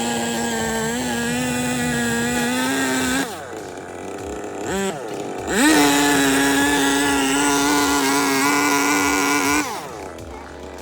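Two-stroke chainsaw running at full throttle while cutting an opening through a house wall. It eases off about three seconds in, gives one short rev, then holds full throttle again for about four seconds before dropping back near the end.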